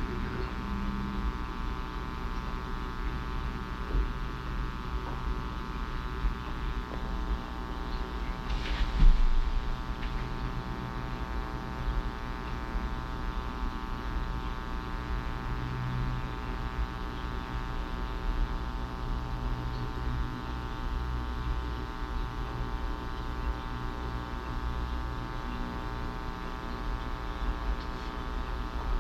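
Steady electrical mains hum with many evenly spaced overtones. A short knock or rustle sounds about nine seconds in.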